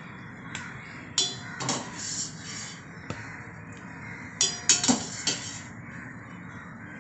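Metal utensils clinking and knocking against a cooking pot, a dozen or so irregular strikes, some ringing briefly, the loudest about four and a half to five seconds in, as boiled noodles are scooped out of the pot.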